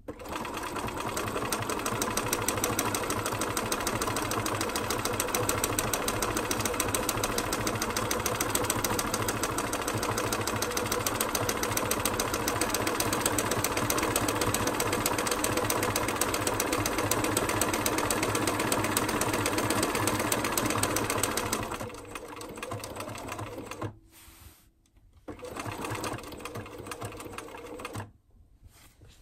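Bernina 1230 (Riccar RCM 1230) electronic sewing machine stitching through fabric at a steady, fast rate with rapid, even needle strokes for a little over twenty seconds. It then slows and stops, runs again for about three seconds, and stops.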